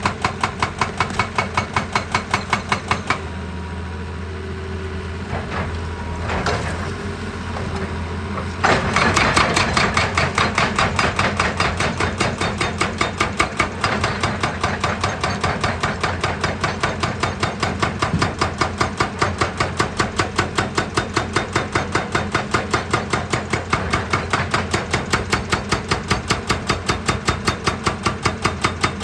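Heavy machine hammering rock with rapid, even percussive blows, about five a second, over a running diesel engine. The blows stop for about five seconds, leaving the engine running on its own, then start again louder.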